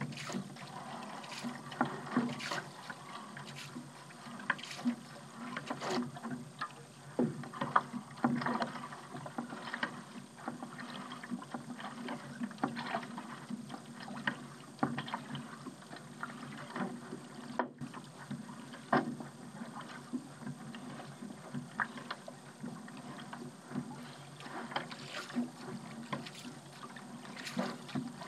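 Paddle blades dipping and pulling through seawater, a short splash with each stroke about every second or two, with water dripping and lapping between strokes.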